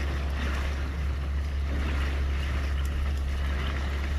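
Shanty boat's motor running steadily while cruising, with a constant low hum and a haze of water and wind noise.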